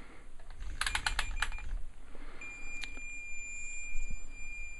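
A lamp switch clicking several times in quick succession as it is turned to the next bulb setting. About halfway in, a steady high-pitched electronic beep starts and holds.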